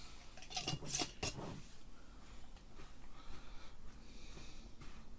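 A few sharp utensil clinks about a second in, then faint scraping as semolina and flour are mixed together on the counter.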